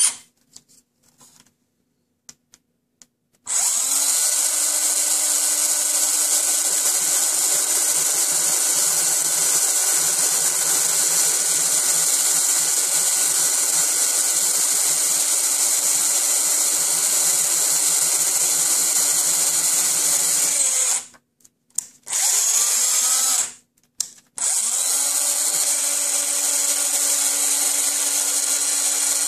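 Electric drill running steadily, widening a connector-sized hole through the side of a plastic gauge cluster pod with its final, largest bit. It starts after a few seconds of quiet, then stops and restarts twice near the end.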